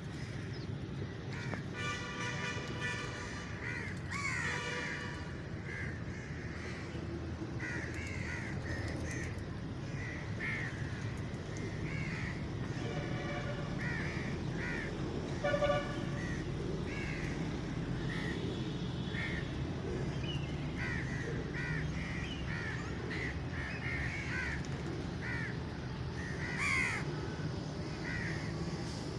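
Crows cawing over and over, short harsh calls following one another through the whole stretch over a steady low background rumble. A few longer horn-like toots cut in, the loudest a short one about halfway through.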